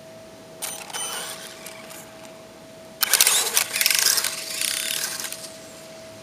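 Traxxas 1/16 Mini E-Revo electric RC truck's drivetrain run up in two throttle bursts, a short one about half a second in and a louder, longer one from about three seconds in. Each burst carries rapid clicking from the rear of the truck. The clicking comes on acceleration and has not been cured by a new rear bulkhead and rear skidplate.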